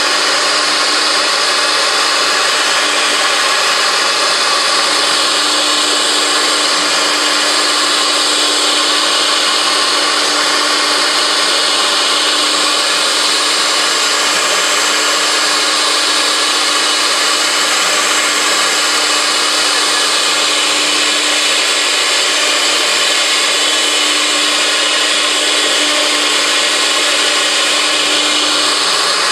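Four-spindle CNC router with its spindle bit cutting grooves into a wood panel: a loud, steady cutting and whirring noise over a constant hum.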